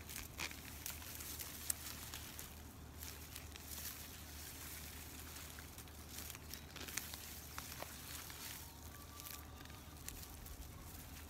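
Onion plants being pulled from garden soil: rustling of the leafy and dried-out tops with irregular crackles and small snaps as roots come free.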